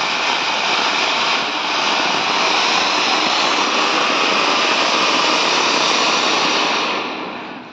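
A ground fountain firework (a flower pot) hissing steadily as it throws up a tall spray of sparks, fading away near the end.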